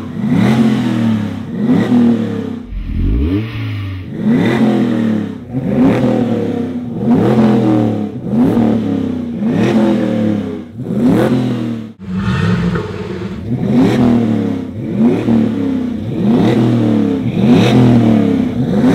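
V8 exhaust revved in quick throttle blips, more than one a second, each rising and falling in pitch, through a Flowmaster performance muffler. The LS V8 of a Chevrolet C10 pickup.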